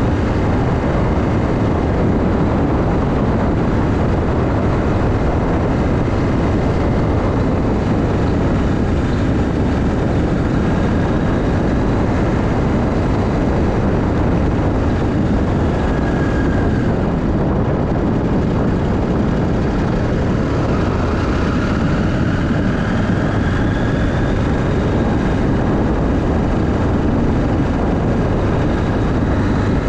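Motorcycle riding along, engine and wind noise on the action camera, loud and steady throughout, with a faint rising whine about two-thirds of the way through.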